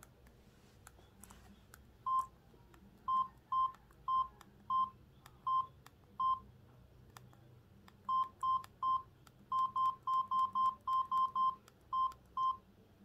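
A Samsung SGH-T349 mobile phone sounding a string of short electronic beeps, all at the same pitch, in an uneven rhythm. About seven come in the first half and a quicker run of about thirteen near the end.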